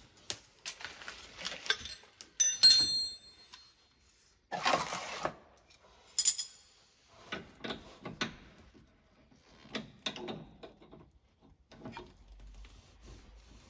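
Metal hand tools clinking and knocking as wrenches are picked up from the floor and worked on the steering tie rod to lengthen it. Two brighter ringing clinks stand out in the first half, with a short scraping rush in between.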